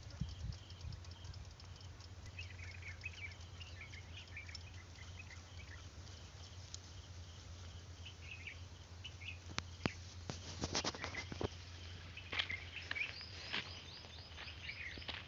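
Quiet rural field ambience over a steady low hum: small birds chirp in short bursts early, and from about two-thirds of the way in there is irregular crackling, like footsteps on dry crop stubble.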